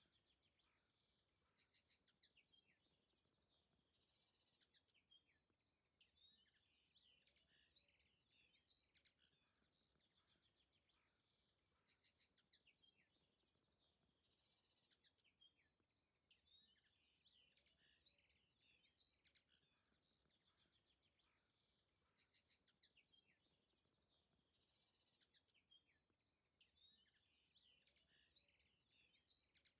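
Very faint birdsong: several small birds chirping and trilling, the same stretch of song recurring about every 12 seconds.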